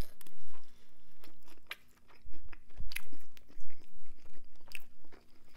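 A person chewing a mouthful of rotisserie chicken: crunching and sharp wet mouth clicks at irregular intervals, with a soft low thud about three seconds in.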